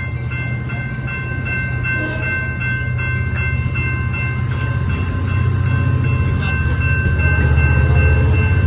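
Amtrak San Joaquin passenger train pulling out, its diesel locomotive rumbling louder as it gets under way. A steady high-pitched whine of several tones runs over the rumble, with a few sharp clicks from the wheels.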